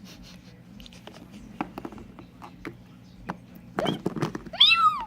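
Scattered light clicks and knocks, then a single high meow about four and a half seconds in that rises and falls in pitch.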